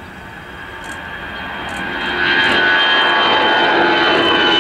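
Twin jet engines of a Brussels Airlines Airbus A320 at takeoff thrust as it lifts off and climbs out, a jet rush with a steady whine on top. It grows louder over the first two seconds, then stays steady and loud.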